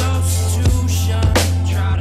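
Music track with a steady beat: a held low bass line and drum hits about one and a half times a second.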